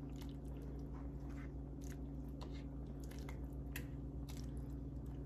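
Plastic slotted spoon stirring meatballs in tomato sauce in a non-stick frying pan: faint, irregular wet squishes and light clicks, over a steady low hum.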